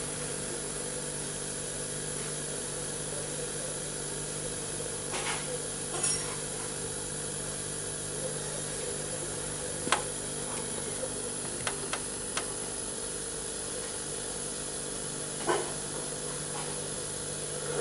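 Steady tape hiss and low electrical hum from a television speaker while a videotape plays a silent title card, with a few faint clicks scattered through.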